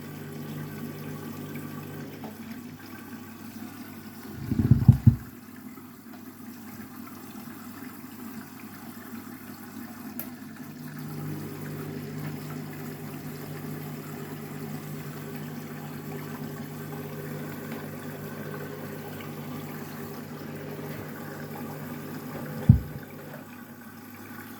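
Candy washing machine taking in water at the start of a wash cycle: a steady flow of water with a low hum under it, a short low thud about five seconds in, and a sharp click near the end.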